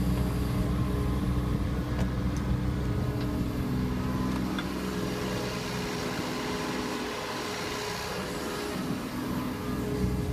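Kubota U27-4 mini excavator's three-cylinder diesel engine running steadily under hydraulic load as the machine digs, slews and dumps a bucket of soil, slightly quieter for a couple of seconds after the middle, with a few faint clicks.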